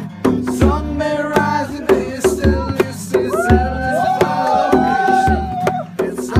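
Music with a steady drumbeat and a melody line, including a long held line in the middle.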